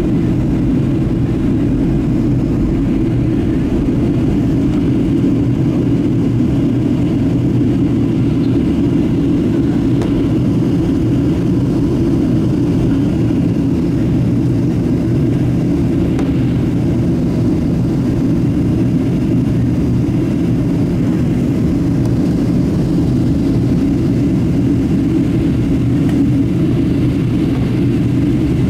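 Steady low roar inside the cabin of a Boeing 737-700 in descent: rushing air along the fuselage together with the drone of its CFM56-7B engines, unchanging throughout.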